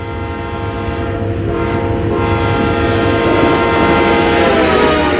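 A GO Transit train's five-chime K5LA air horn blowing one long, sustained chord over the low rumble of the train. The chord's pitch drops slightly near the end.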